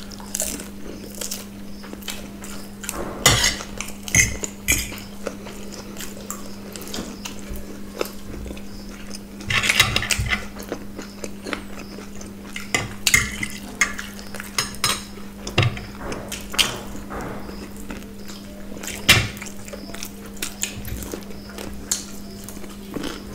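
Metal forks and spoons clinking and scraping on plates, in irregular clinks with a few louder knocks. A steady low hum runs underneath.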